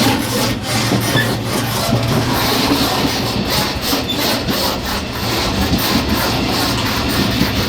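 Running noise at the gangway between cars of a Taiwan Railways EMU500 electric multiple unit: a steady rumble of wheels on rail with a low hum, and many small rattles and knocks from the car connection.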